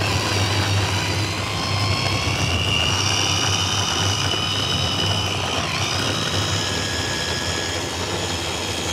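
Electric mini chopper's motor running at speed, grinding shallots, garlic, candlenuts, chilli and spices into a smooth paste. The steady whine starts abruptly and dips briefly in pitch about six seconds in.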